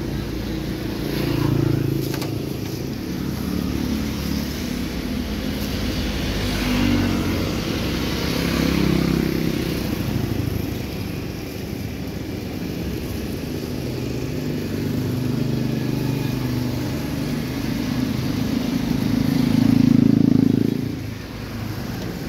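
Motor vehicles, including motorcycles, running past on a street. Their engine hum shifts in pitch and one grows loudest near the end, then drops away quickly.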